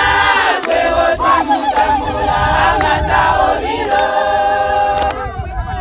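A group of villagers singing together, many voices at once holding and bending long notes.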